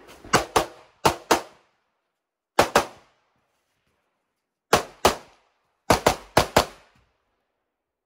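About a dozen handgun shots, fired mostly in quick pairs, with a final string of four about six seconds in. Each shot is a sharp crack with short silences between the groups.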